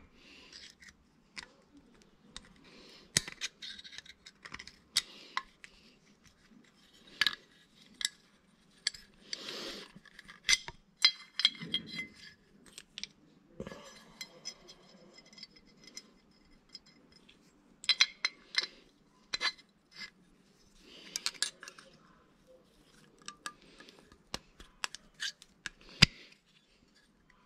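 Scattered clicks and metallic clinks from a stiff throttle return spring being worked by hand onto a Lombardini engine's aluminium throttle-control cover. A few of the clinks ring briefly.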